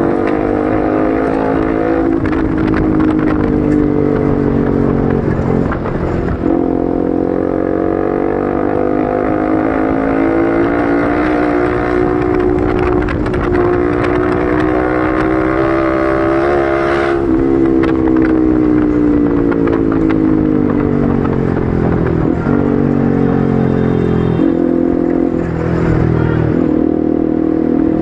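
Bajaj Pulsar RS200's single-cylinder engine running through an aftermarket Akrapovic exhaust while riding. The engine note climbs slowly, breaks off sharply about two-thirds of the way through, then falls away, with another change in pitch near the end.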